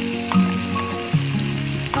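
Background music of held, sustained notes that change every half second or so, over a steady crackling hiss.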